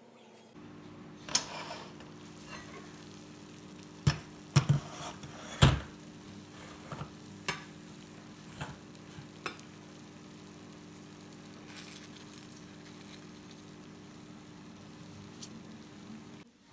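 Freshly baked cheese-topped casserole sizzling softly over a steady low hum. A few sharp knocks and clinks, the loudest between about four and six seconds in, come from the ceramic baking dish and a metal spatula being handled.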